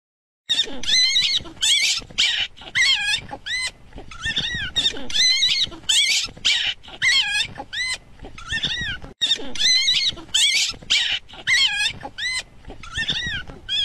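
Young puppy squealing and whining over and over, about two high cries a second, each rising and falling in pitch: the distress cries of a pup hanging from the edge of a seat, struggling to climb up.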